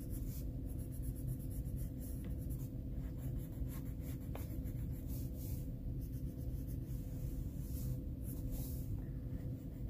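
Coloured pencil scratching across paper in short, irregular strokes, laying in orange shading, over a steady low hum.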